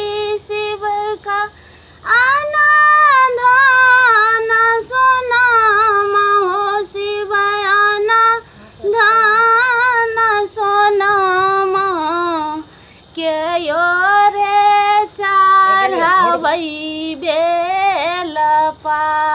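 A single high female voice singing a Bhojpuri devotional song to Shiva, unaccompanied, in long ornamented phrases that slide and waver in pitch, with short breath pauses about 2, 8 and 13 seconds in.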